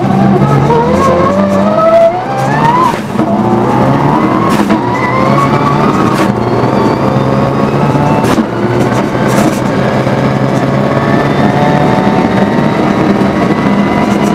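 Rally car engine heard from inside the car at full throttle, revving up through the gears. The pitch climbs, dips at a shift about three seconds in, climbs again, then holds higher, over dense tyre and road noise with a few sharp cracks.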